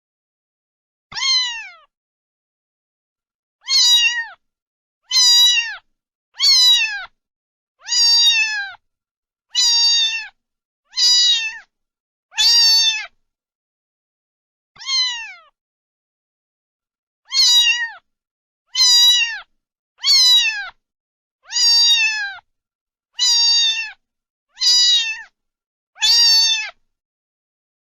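Domestic cat meowing over and over: about sixteen high meows, each under a second and falling in pitch at the end, with gaps of one to two seconds between them.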